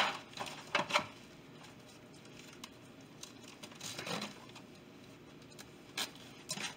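Scattered crinkling and rustling of plastic as a raw turkey roast is handled over a plastic oven baking bag in a foil pan, in short bursts about a second in, around four seconds and again around six seconds.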